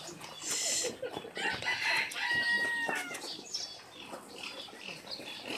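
Birds calling, including one held call lasting under a second, a little after two seconds in. There is a short rustle about half a second in.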